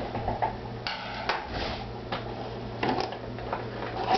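Scattered small clicks and snips of scissors and thread being handled at a stopped sewing machine, over a steady low hum.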